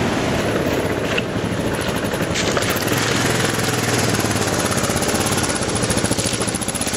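Single-cylinder dual-sport motorcycle engine running steadily, a fast even firing pulse with no change in speed.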